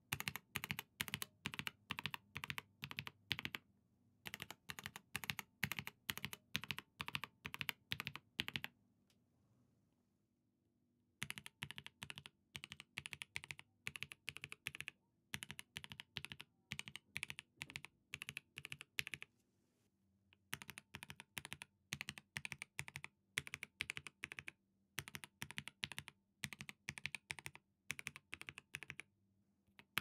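Typing on a KBD67 Lite keyboard with Gateron Ink v2 linear switches: rapid runs of keystroke clacks with three short pauses. After the first pause the keycaps are GMK, and near the end they switch to SP SA keycaps.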